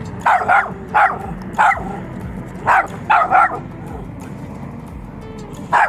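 Small white spitz-type dog barking: a run of short, high-pitched barks, some in quick pairs, then a pause of about two seconds and one more bark at the very end.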